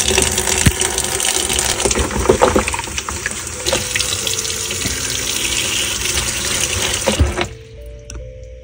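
Kitchen tap running hard into a plastic basin of leafy greens, the water splashing as the greens are rinsed. The tap is shut off about seven seconds in.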